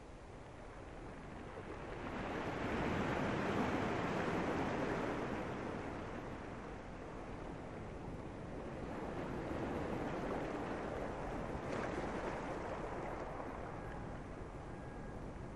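Sea waves surging in and drawing back, one big swell a few seconds in and another about ten seconds in.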